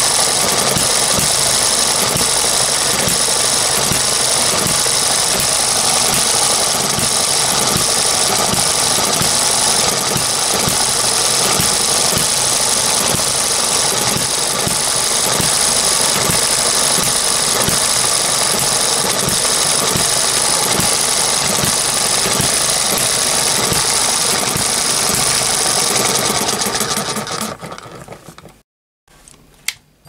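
Eachine ET1 model hit-and-miss gas engine running, a loud, steady, fast clatter of firing and moving parts. The sound falls away near the end.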